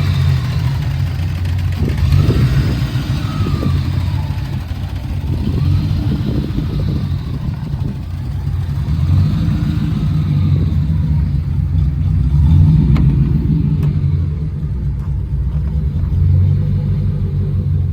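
1983 Chevrolet Camaro Z28's V8 engine running after a cold start, a deep steady rumble with the revs rising and falling a few times.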